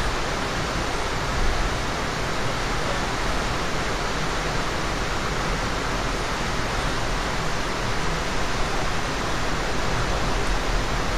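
Steady rushing rumble of an Amtrak Superliner passenger car running at speed, heard from inside the car: wheels rolling on the rails with constant road noise.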